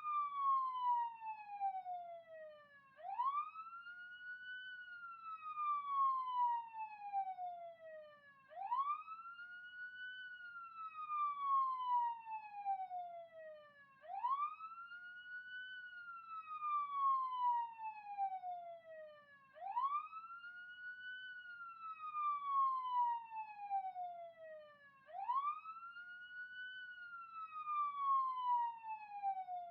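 Police siren sounding a wail. Each cycle sweeps up quickly, then falls slowly over about four seconds, repeating about every five and a half seconds.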